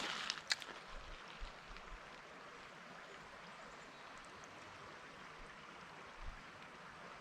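Brook water running steadily with a soft, even rush. A few sharp clicks and rustles right at the start.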